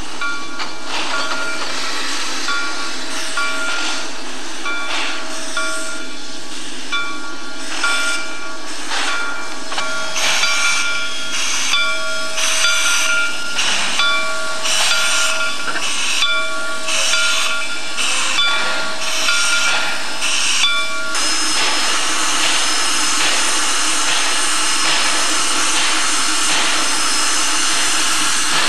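Shay geared steam locomotive working: a bell rings about once a second over sharp exhaust beats that grow quicker and louder partway through. About three-quarters in, a steady loud hiss of steam takes over.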